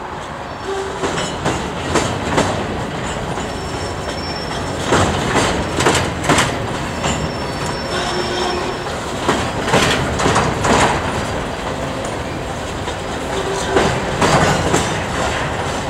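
Freight train's coal hopper cars rolling past, their steel wheels clacking irregularly over rail joints over a steady rumble, with brief high wheel squeals now and then.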